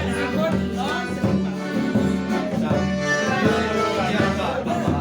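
Accordion-led music with a steady beat, with some singing.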